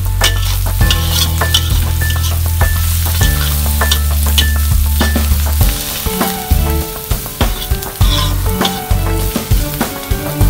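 Chopped onion and garlic sizzling in oil in a wok, stirred with a metal spoon that scrapes and taps against the pan. Background music with a low bass line plays under it.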